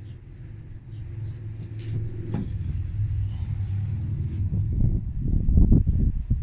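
Handling noise from the camera being picked up and moved: a low rumble that grows louder, with a click about two seconds in and a cluster of knocks and bumps near the end.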